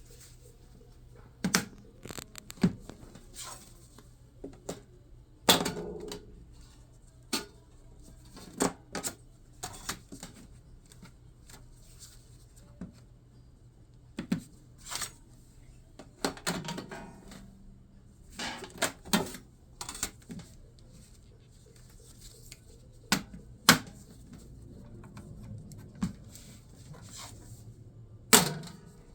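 Irregular sharp clacks and knocks of a 5-inch arrow welding magnet and steel pieces being set against each other and moved between angles, with the loudest clacks about five seconds in and near the end.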